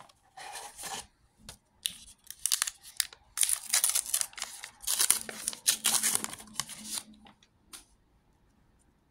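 A Star Wars Unlimited booster pack's wrapper being torn open and crinkled: a run of rips and rustles lasting about seven seconds, loudest in the second half, then stopping.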